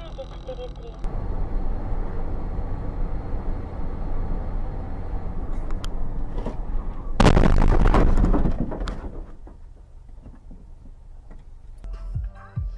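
Steady road and engine rumble of a moving car, then a loud crash impact about seven seconds in that lasts under two seconds. Music starts near the end.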